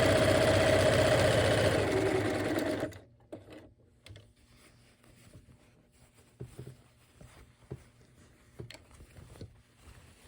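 Bernina 1130 sewing machine stitching a decorative stitch at a steady speed, with a steady whine, stopping suddenly about three seconds in. Faint scattered clicks and rustles follow.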